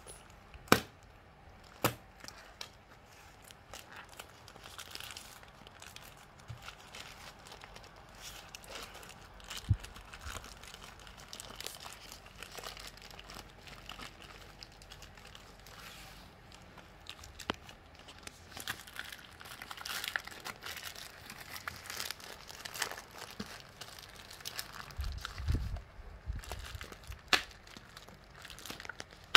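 Plastic courier wrapping crinkling and tearing as a rolled parcel is cut open with a knife. A few sharp clicks stand out: one about a second in, another at about two seconds, one near ten seconds and one near the end. There are also some low knocks shortly before the end.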